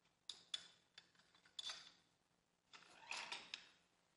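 Faint metallic clicks and light clatter of hand work on the crankshaft vibration damper of a VW 2.0 TSI engine, as the knurled screws of the holding tool are undone and the damper is taken off. There are a few separate clicks in the first two seconds, then a denser rattle of metal on metal about three seconds in.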